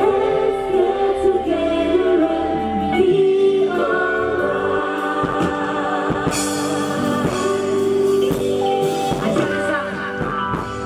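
Music with singing: a vocal line with held notes over instrumental backing.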